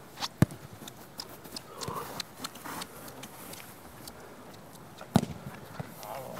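Play in an indoor ball game: scattered footsteps and shoe knocks on a hard court floor, with two sharp impacts of the ball, about half a second in and about five seconds in.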